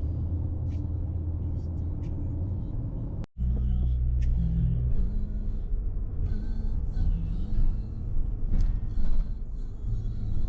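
Steady low rumble of a car driving, heard from inside the cabin, with road and engine noise; it drops out briefly about three seconds in and then carries on.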